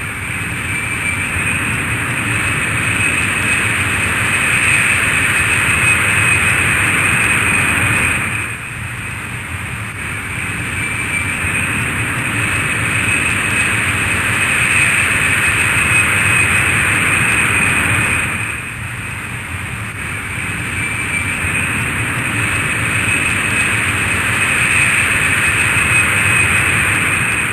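Airplane noise: a steady roar with a high, unchanging whine on top. It swells over about ten seconds, dips briefly, and repeats the same way twice more.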